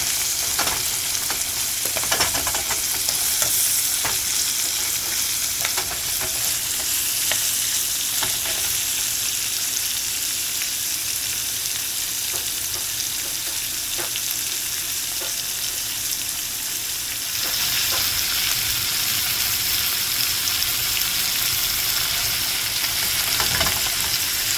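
Food sizzling as it fries in a pan, with the scrape and click of a utensil stirring it. The sizzle gets louder about two-thirds of the way through.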